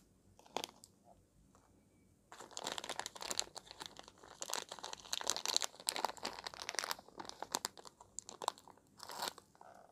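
Thin wrapper of a pastillas milk candy crinkling as it is unwrapped by hand: a single click about half a second in, then dense crinkling from about two seconds in until shortly before the end.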